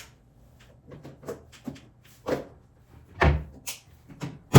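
A series of household knocks and clacks, like a cupboard or appliance door being opened, shut and handled, with a heavier thump about three seconds in and a sharp clack at the end.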